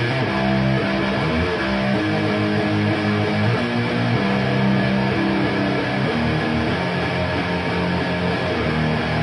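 Electric guitar with DiMarzio Fred pickups played through a Framus Cobra 100 W amp head and a Marshall MF400A cabinet with Celestion G12K-100 speakers. It plays held, distorted chords that change about every second.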